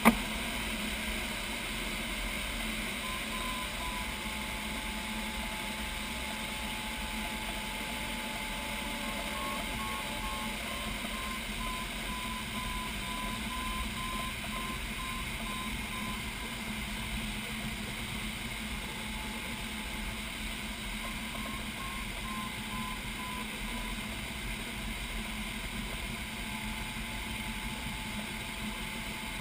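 Steady rush of air around a sailplane's cockpit in flight, with an electronic variometer beeping over it. The beeps come in quick runs several times, and the variometer holds a steady tone for several seconds near the start. A sharp click sounds right at the beginning.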